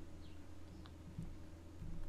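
Quiet room tone with a steady low hum, and a couple of faint computer mouse clicks about a second in.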